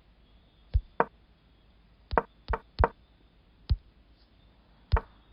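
Seven sharp clicks at uneven gaps, from a computer as the moves of a chess game replay are stepped through.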